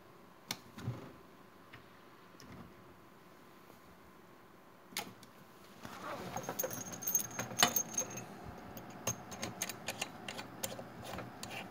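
Two sharp clicks about half a second in as the amplifier's power button is pressed, then from about six seconds in a busy run of light metallic clinks and rattling handling noise around the wattmeter and its coax connectors.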